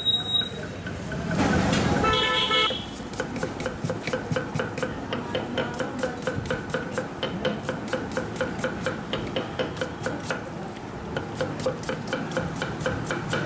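A kitchen knife chopping red onions very fast on a wooden board: a steady, rapid run of sharp knocks, several a second. About two seconds in, a vehicle horn honks briefly over street noise.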